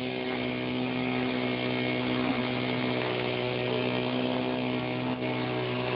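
A steady motor drone held at one pitch, with a slight wobble about two seconds in.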